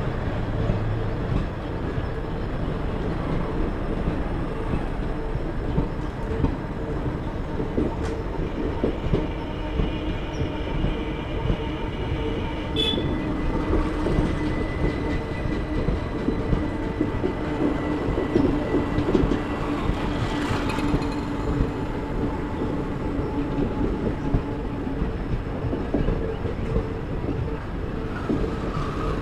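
Indian Railways passenger coaches rolling past at close range: a steady rumble, with frequent clacks from the wheels running over rail joints.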